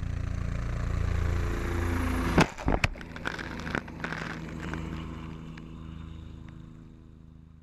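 Helicopter passing low overhead with a water bucket slung beneath, its rotor beating in a steady pulsing drone. A few sharp knocks and rustles come about two and a half to four seconds in as grass brushes against the camera. Then the helicopter fades away.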